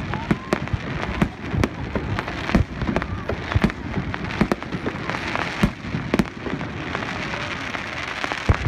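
Fireworks display: aerial shells bursting with sharp, irregularly spaced bangs over a continuous crackle of glittering stars, the crackle thickest in the second half.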